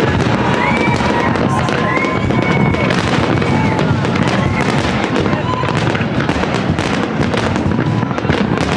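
Fireworks display with dense, rapid crackling bursts throughout, and high whistling tones that rise and then hold, about half a second and two seconds in.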